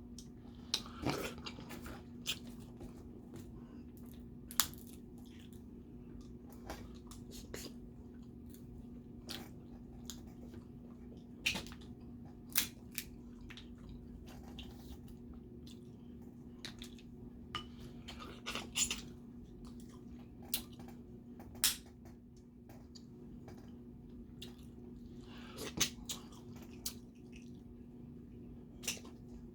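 Eating snow crab and crawfish: scattered sharp cracks and clicks of shells being broken and picked apart, with chewing, over a steady low hum.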